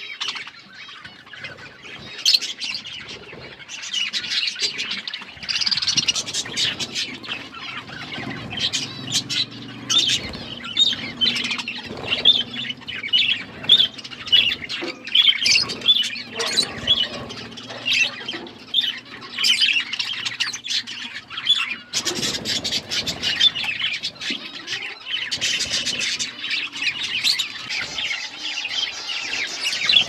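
Flock of budgerigars chattering continuously with quick chirps and squawks while feeding, over a scatter of sharp clicks from beaks pecking at soft food in a metal dish. A faint low hum runs underneath through the middle stretch.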